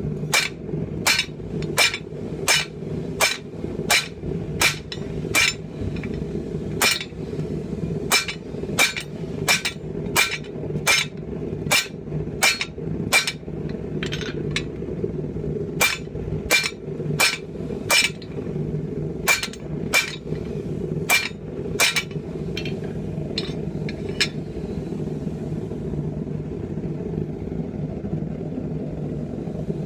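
Hand hammer blows ringing on a steel tomahawk-forming jig holding red-hot steel on the anvil, about one and a half strikes a second, with a brief pause near halfway and a few lighter taps before the blows stop about three quarters of the way in. A steady low rumble runs underneath.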